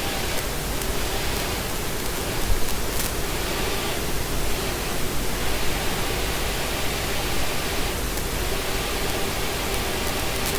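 Steady, even hiss-like noise with a faint low hum.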